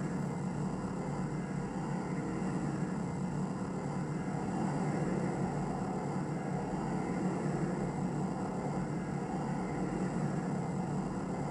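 Sci-fi spaceship engine sound effect: a steady, dense low rumble.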